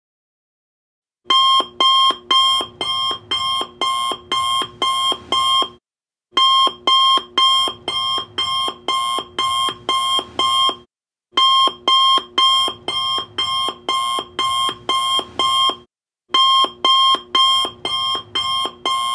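Electronic alarm-clock beeping as a countdown timer reaches zero, starting a little over a second in. The beeps come about two a second in runs of about ten, with a short pause between runs.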